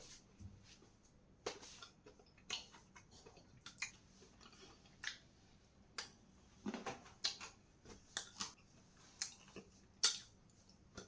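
Light, irregular clicks and knocks of spice containers and jars being handled and moved about in a kitchen cabinet, with the sharpest knock about ten seconds in.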